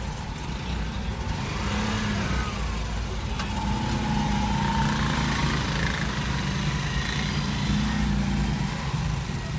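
Engines of slow-moving traffic heard from inside a car's cabin: a steady low engine rumble with a light hiss of road noise, a little louder after the first couple of seconds.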